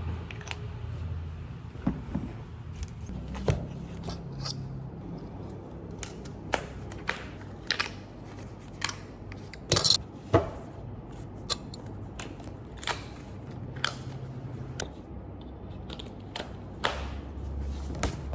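Irregular sharp clicks and taps, the loudest a little past halfway, over a low steady hum.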